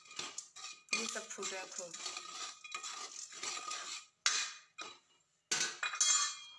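A spatula stirring and scraping dry chickpeas through hot roasting granules in a kadhai, a rattling, gritty scrape in uneven strokes. The stirring pauses twice, around four and five seconds in, then comes back louder near the end.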